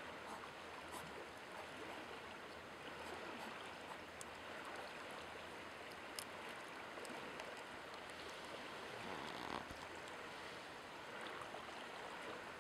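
Steady rushing background noise, like running water, with faint scattered small clicks.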